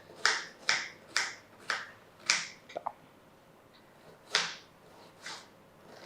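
Kitchen knife chopping an onion into small pieces on a cutting board. There are five sharp chops at about two a second, a pause, then two more.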